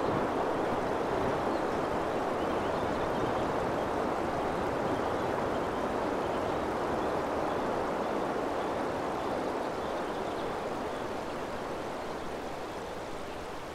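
Stream water flowing steadily over the riverbed, with an even rushing sound that slowly fades near the end.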